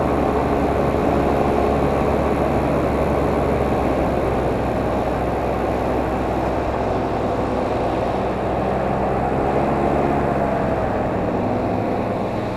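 A steady motor hum with several held tones, running evenly at constant speed.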